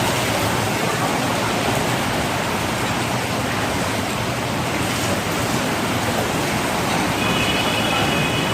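Steady heavy rain making an even hiss, with a short faint high-pitched tone near the end.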